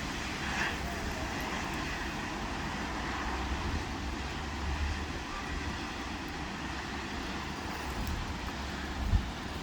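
Heavy rain falling in a steady hiss over a low rumble of street traffic, with one short knock near the end.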